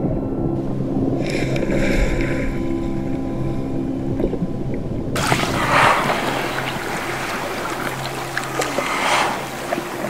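Low steady drone over underwater water noise. About five seconds in it gives way to a loud wash of splashing and dripping water with scattered small clicks, from a brown bear sitting in a lake and eating a sockeye salmon.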